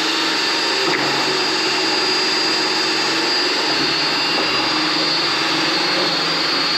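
A power drill running steadily at full speed, spinning a paint-mixer attachment in a can of paint, with a constant high whine; the spinning mixer flings paint everywhere.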